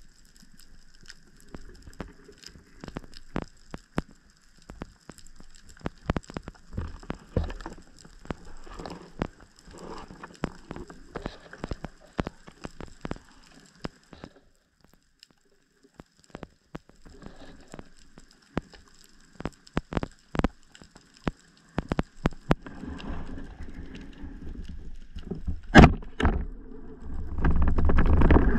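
Underwater ambience: irregular crackling and clicking under a faint steady hiss. One loud sharp crack comes near the end, followed by a louder low rushing sound.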